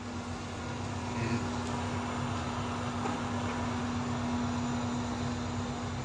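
Robot vacuum cleaner running on a tiled floor: a steady whirring hum of its motor and brushes.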